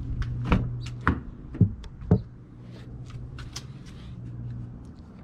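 Sharp clicks and knocks, four in the first two seconds, then fainter ticks, from a car hood being lifted on newly fitted gas hood struts to test them, over a steady low hum.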